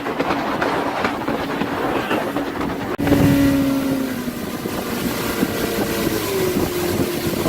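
Motorboat engine running under way, with heavy wind noise over it. There is an abrupt break about three seconds in, and near the end the engine's pitch drops.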